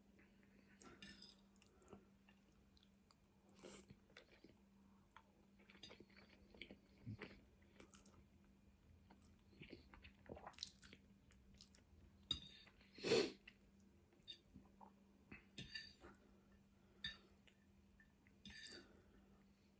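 Faint, intermittent chewing and mouth sounds of a person eating, with one louder bite about two-thirds of the way through.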